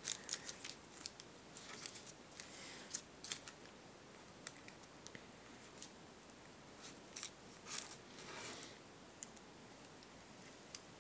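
Ballpoint pen tracing around a paper template on cardstock: faint, scattered scratchy strokes of the pen nib and light rustles of paper, a few of them louder about two-thirds of the way in.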